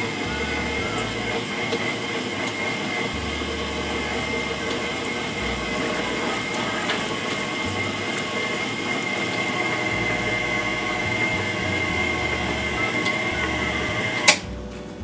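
Hamilton Beach eclectrics stand mixer running steadily, its motor giving a constant hum with a high whine as the beater mixes cake batter. It is switched off with a click near the end.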